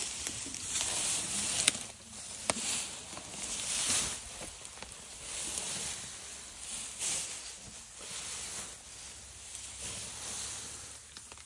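Grass rustling and tearing in repeated bursts every second or so as an African elephant bull feeds on it with his trunk, with a couple of sharp clicks about two seconds in.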